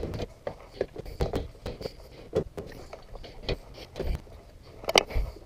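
New all-aluminium Mishimoto radiator being pushed and worked down into a tight fit against the fan shroud and mounts, with irregular knocks, clicks and scraping. The loudest knock comes near the end.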